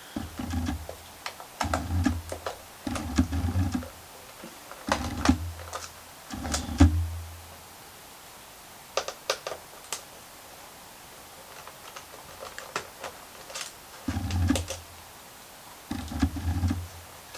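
Bursts of clicking and tapping, each about a second long with a low thud under it, seven in all, with a short run of sharp clicks midway: hands working on a laptop's plastic case and keys.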